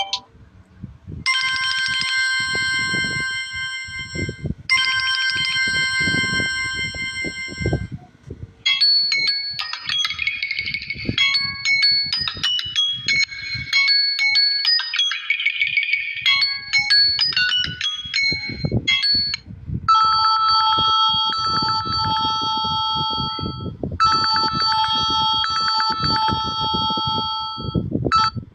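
Samsung Galaxy A04s ringtones played one after another. First a chiming tone pattern sounds twice, then a quicker melodic tune runs for about ten seconds, then a different chiming pattern sounds twice.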